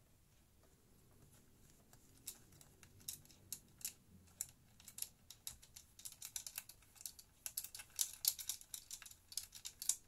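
Light, irregular clicking and tapping of hands working on the all-in-one PC's plastic stand as it is being released. The clicks start about two seconds in and come thicker toward the end.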